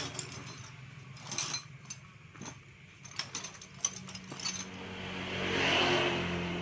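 Scattered metallic clicks and clinks of hand tools working on a Yamaha NMAX scooter engine during teardown. Near the end a swelling rush of noise rises and fades, louder than the clicks.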